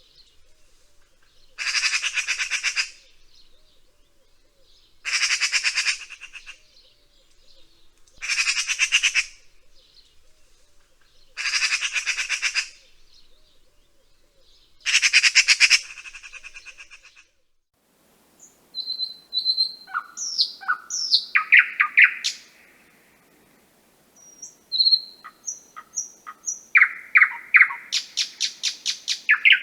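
A bird gives five harsh, raspy squawks, each just over a second long, about every three seconds. Then, after a short pause, a different bird recording follows with short chirps, whistled notes and a quick trill near the end.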